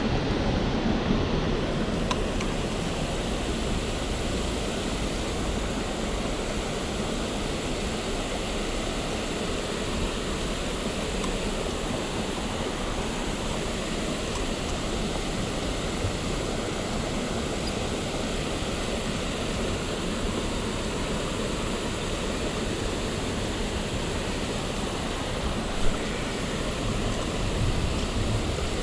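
Steady rushing of water pouring through a river spillway, with one brief knock near the end.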